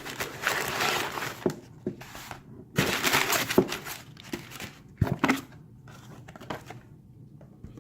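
Packing material crinkling and rustling as a shipping box is unpacked, in three bursts with a few sharp knocks among them.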